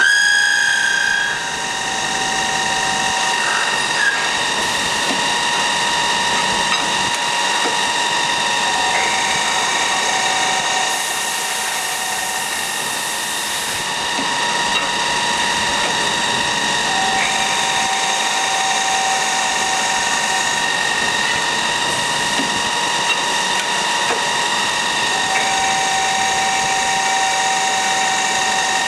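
MSI ChamferMate chamfering machine's turning head running with a steady whine, while a second, lower tone comes and goes every several seconds as bars are chamfered. A few seconds of high hiss come in near the middle.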